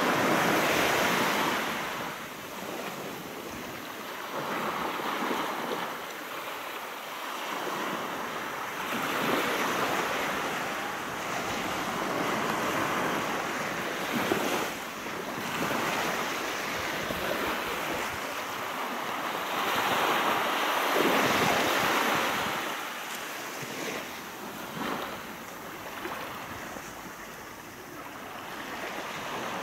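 Sea waves breaking and washing up a beach, swelling and ebbing in slow surges several seconds apart.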